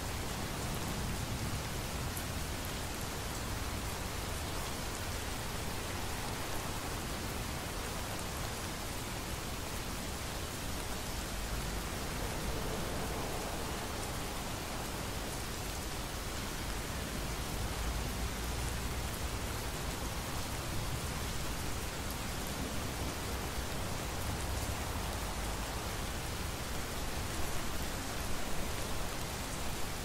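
Steady rain falling in an even wash, with a low thunder rumble swelling underneath about halfway through.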